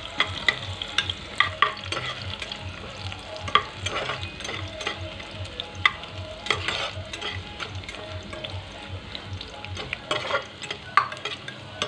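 Sliced onions sizzling in oil in a pressure cooker over low heat, stirred with a metal ladle that scrapes and clicks against the pot again and again.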